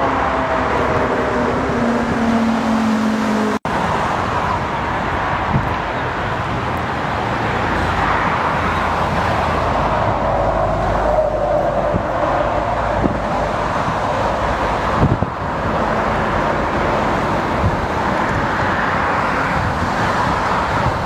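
Twin-engine jet airliners landing, heard from beside the runway. In the first few seconds the engine tones fall in pitch, then the sound drops out abruptly about three and a half seconds in. After that comes the steady rushing noise of another airliner's turbofans on short final and touchdown.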